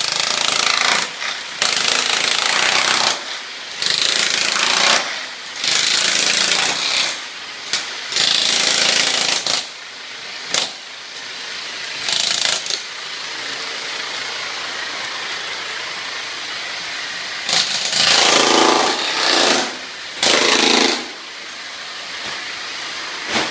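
Electric demolition hammer chiselling glued-down engineered hardwood off a concrete slab, running in spells of a second or two that stop and start again. A quieter, steady stretch in the middle, then two more short spells near the end.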